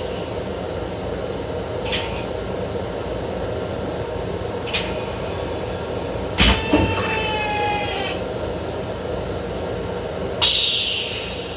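Long Island Rail Road M7 railcar running, heard from inside its restroom: a steady rumble with a few sharp clicks. About six seconds in comes a knock followed by a short wavering squeal, and near the end a sudden hiss that fades.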